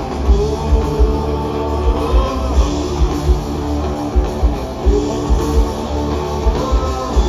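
Live rock band playing an instrumental passage between sung lines: electric guitar over drums with a steady kick drum.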